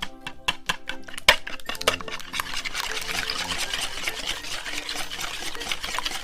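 Electric hand mixer running in a bowl of wet glue-and-activator slime, starting about two seconds in with a steady whir and wet churning.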